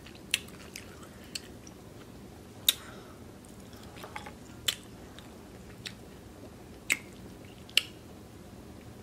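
Close-up mouth sounds of a person eating cooked cabbage: irregular wet smacks and clicks of chewing, roughly one every second.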